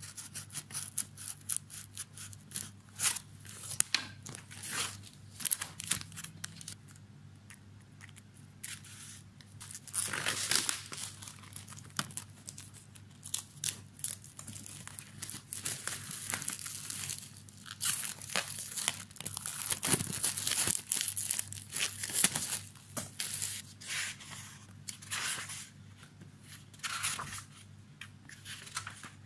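Cardboard package torn open by hand, then paper pads and sheets of paper handled: an uneven run of tearing, rustling and crinkling with small clicks and scrapes, over a faint steady hum.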